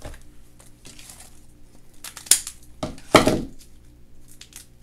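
Plastic toy packaging being handled and opened: light rustling and ticks, with two sharp plastic clicks about two and three seconds in, the second the loudest.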